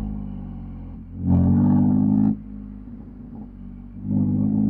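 BMW M4 F82 Competition's twin-turbo inline-six exhaust on the move: revs falling off at first, then a loud burst of throttle about a second in that lasts about a second and cuts off abruptly, quieter running, and a second loud burst near the end.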